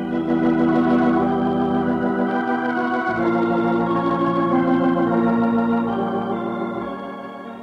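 Radio-drama organ bridge: sustained organ chords that change a few times and fade near the end, marking a change of scene.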